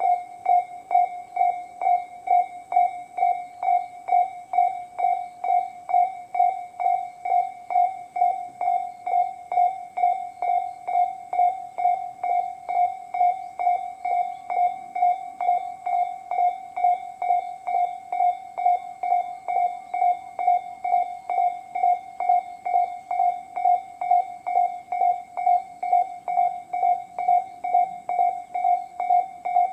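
Japanese railway level-crossing warning bells of Tobu's 'sound C' type, electronic strikes repeating evenly about twice a second with a short ringing tail on each.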